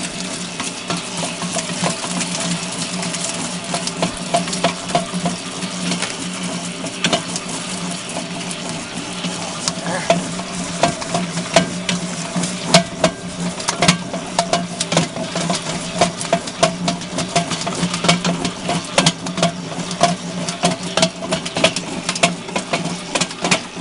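Hobart 20-quart mixer running on its second speed, the motor and gear drive giving a steady hum while the flat beater churns dough in the stainless steel bowl, with many sharp slaps and clicks throughout.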